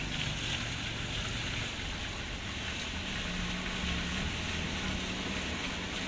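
Cars driving along a rain-wet street: low engine hum under a steady hiss.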